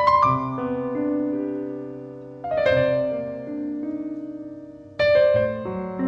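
Background piano music: slow, gentle chords struck about every two and a half seconds, each left to ring and fade.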